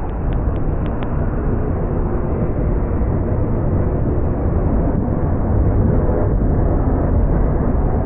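Freight train rolling past, with a steady heavy rumble of wheels on rail. There are a few sharp clicks in the first second.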